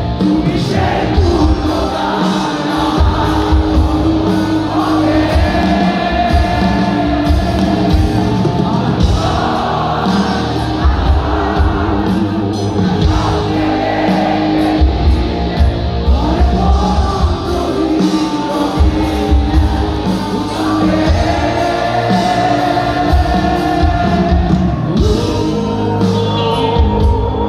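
Rock band playing live, with a singer over loud guitars and a pounding drum beat, in a large hall.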